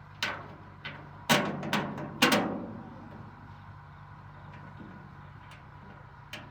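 Five sharp knocks or blows in quick succession, the loudest two about a second apart and trailing off with a short ring, over a steady low hum.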